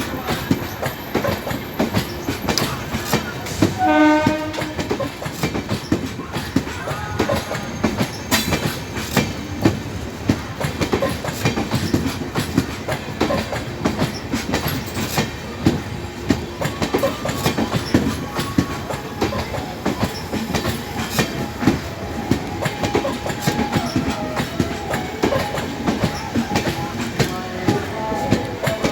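Coaches of an Indian express train rolling past, the wheels clattering steadily over the rail joints. A short horn blast sounds about four seconds in.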